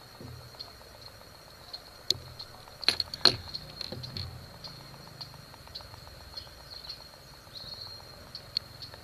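Small handling clicks and taps, with a few sharp, louder clicks about two to three and a half seconds in, over a faint steady high-pitched whine.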